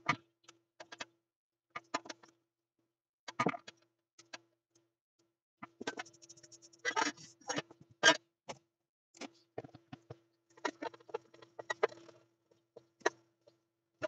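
Irregular clicks, taps and scrapes of a screwdriver and small metal parts on a workbench as power transistors and their screws are taken off a metal amplifier heatsink and set down, the sharpest knock about 8 seconds in.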